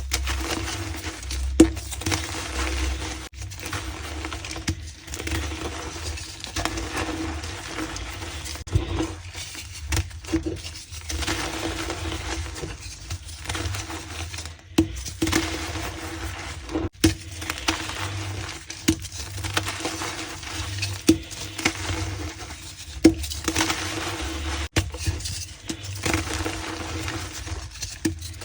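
Crushed gym chalk being pressed and reformed into a block, crunching and squeaking, with a sharp click every few seconds.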